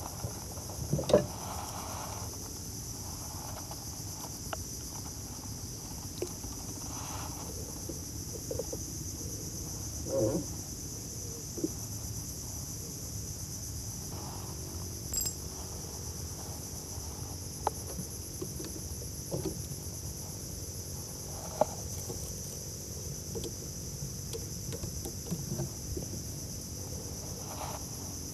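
Steady high-pitched shrilling of an insect chorus, with scattered light knocks and clicks from handling gear in a wooden boat.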